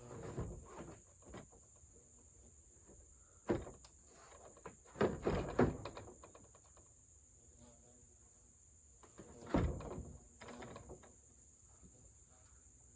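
Plastic Rubbermaid shed panels knocking and clattering as they are fitted together: a handful of separate thumps, the loudest cluster about five seconds in.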